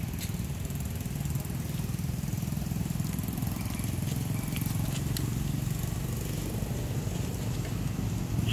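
A small engine running steadily: an even low rumble, with a few faint clicks.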